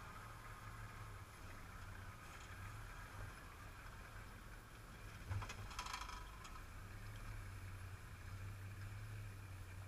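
Faint, muffled low drone of a Nissan Patrol 4WD's engine as it crawls slowly up a rutted dirt track. There is a sharp knock about five seconds in, followed by a brief rattle.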